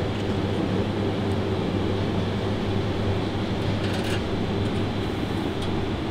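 Steady drone of a kitchen ventilation fan with a low hum, with a faint light click about four seconds in.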